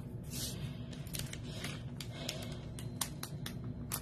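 Clear plastic envelope being handled and pried open with the fingertips, giving scattered light ticks and crinkles.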